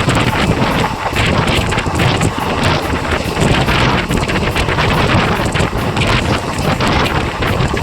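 Passenger train running at speed, heard from on board an ICF coach: a steady rush of wheel and track noise with constant quick rattles, and wind blowing hard on the microphone.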